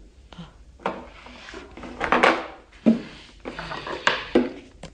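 Close-up handling noise: a dry bone being turned and moved in the hands against the microphone, with irregular rubbing and scraping and a few sharp knocks.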